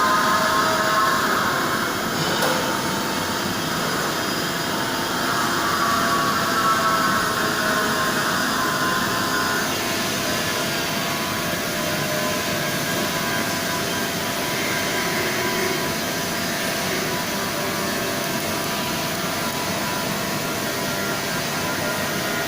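Hartford CNC milling machine running a milling pass, a steady mechanical noise with a spindle whine. The whine's several tones waver for about the first ten seconds, then settle and hold steady.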